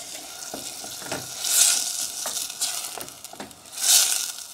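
Tomato sauce with onions and peppers sizzling in a stainless steel pot as it is stirred with a wooden spoon, the spoon scraping the pot. The sizzle swells loudest twice, about a second and a half in and near the end.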